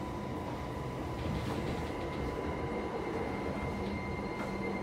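Running noise inside an E231-1000 series commuter train car, with the steady high whine of its Hitachi IGBT VVVF inverter. A second, higher tone and a low hum join about three seconds in.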